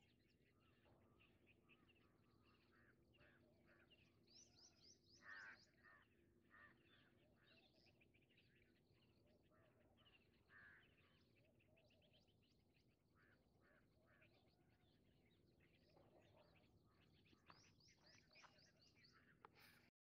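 Faint chorus of small birds chirping and twittering, with quick trilled runs of high notes about four seconds in and again near the end.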